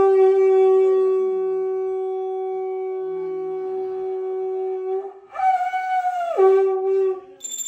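Conch shell (shankha) blown in two blasts. The first holds one steady note for about five seconds and then fades. The second starts higher about five seconds in, drops back to the same note and stops a little before the end. A high, steady ringing tone starts just at the close.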